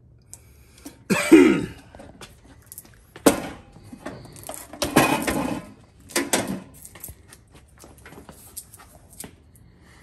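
A man coughing and clearing his throat in several short bursts, the loudest about a second in, with small clicks of handling between.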